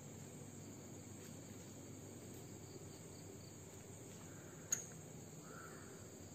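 Night insects, likely crickets, chirring in a faint, steady, high-pitched drone, with a single sharp click a little under five seconds in.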